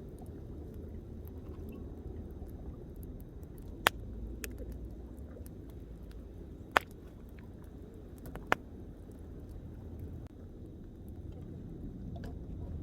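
Wood campfire crackling, with three sharp pops about a second or two apart and a few fainter ticks, over a steady low rumble.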